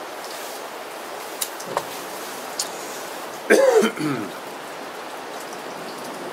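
A lighter clicked a few times to light the gas burner of a Trangia stove, over steady rain. About three and a half seconds in, a short throaty vocal sound from the cook, like a cough or throat-clear, is the loudest thing.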